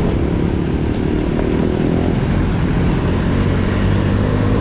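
Wind rushing over the microphone of a moving bicycle, with a motor vehicle's engine running close by in the road traffic, a little stronger from about a second in.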